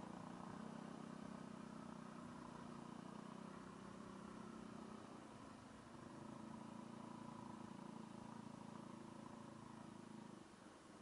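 Small scooter engine running at a steady riding speed on a dirt track, easing off briefly around six seconds in and again near the end.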